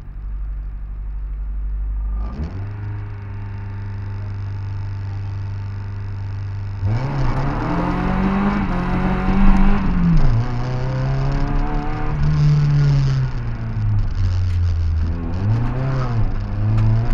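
Opel Manta B engine heard from inside the cabin: it idles, is brought up to a steady raised rev about two seconds in and held there, then the car launches about seven seconds in and the engine revs up and drops back several times as it pulls through the gear changes.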